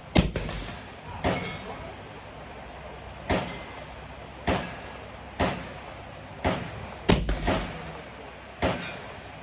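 Suppressed 6.5 Grendel rifle firing a string of about eight shots at uneven intervals of one to two seconds. Each shot is a sharp crack with a short tail.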